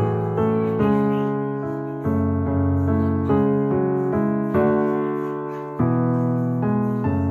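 Music: slow piano-like keyboard chords, struck about once every second and a quarter, each ringing and fading before the next.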